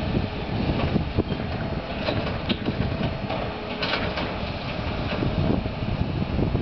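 Distant 45-tonne long-reach excavators at work, their diesel engines running with a faint steady whine. A few brief knocks come around the middle, and wind buffets the microphone throughout.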